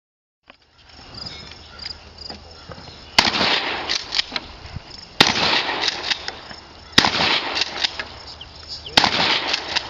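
Four shotgun shots about two seconds apart, each a sharp report trailing off in an echo.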